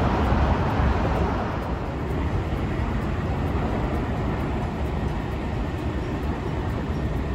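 City street traffic: a car passes close and loudest in the first second or so, then a steady hum of road traffic.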